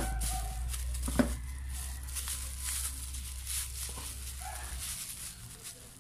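Plastic bag rustling and crinkling around a power-tool armature gripped with pliers, with a few sharp clicks, the loudest at the start and about a second in. A steady low hum runs underneath and stops near the end.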